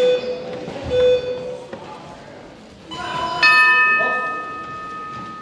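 A short musical jingle, then a bell struck once about three and a half seconds in, ringing on and fading slowly.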